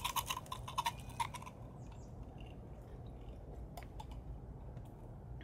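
Someone drinking slushy, half-frozen beer from a can: a quick run of wet clicking gulps over the first second and a half, then a single click a little before the end, over a low steady hum.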